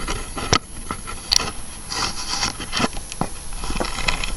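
Scraping and rubbing with scattered sharp clicks as metal parts are handled and the exhaust of a small Suffolk Pony engine is worked loose.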